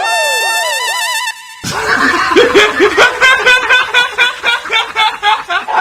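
A person laughing hard in rapid, rhythmic ha-ha bursts, about four a second, starting about two seconds in. Before the laughter there is a warbling sound with repeated falling pitch sweeps.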